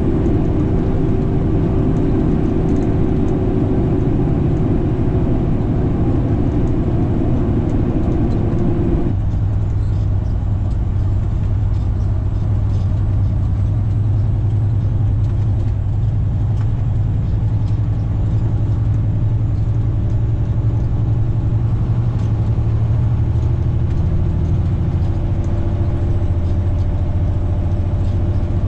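Heavy truck's diesel engine running steadily. About nine seconds in, the engine note changes abruptly to a lower pitch and holds there.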